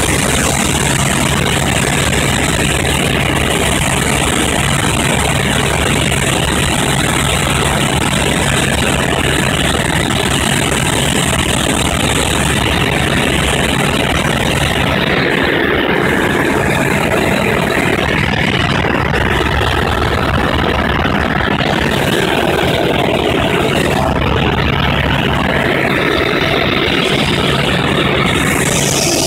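Helicopter in flight, heard from inside the cabin: the engine and rotor make a loud, steady drone with a constant low hum.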